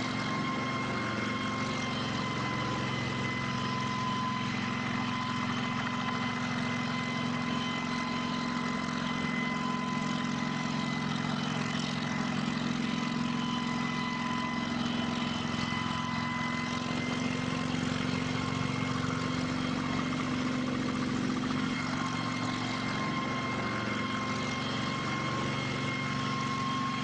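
Kamov Ka-26 helicopter's twin radial piston engines running steadily at constant speed, with a steady whine over the engine sound.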